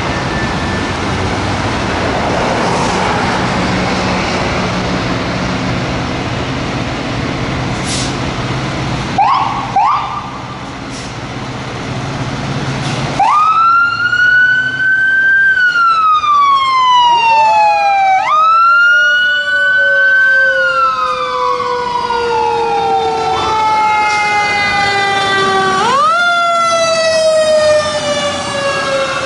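Traffic and engine noise for the first thirteen seconds or so, with a couple of short rising chirps about nine seconds in. Then Federal Q2B mechanical fire-truck sirens wind up quickly and coast down slowly, again and again, with a second, lower siren overlapping the first.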